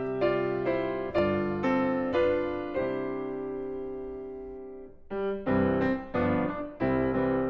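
Background piano music: single struck notes and chords, with one long chord dying away about three seconds in, and the playing starting again near the five-second mark.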